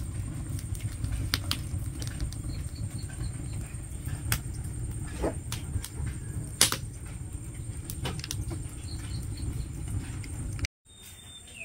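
Wood fire burning in an open hearth under a dosa pan: a steady low rumble of flames with scattered sharp crackles from the burning wood, the loudest about two-thirds of the way through. The sound stops abruptly near the end.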